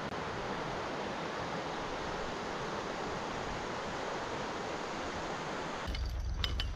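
Shallow river rushing over rocks and riffles: a steady, even rush of water. Near the end it cuts to a low rumble with scattered clicks.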